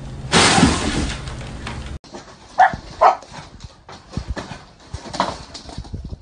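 Small dogs yipping and barking at a wire pen gate: two sharp yips about half a second apart, then another bark a couple of seconds later, with clattering and clicks from the pen as they jump at it. Before them, in the first second or so, there is a loud noisy burst.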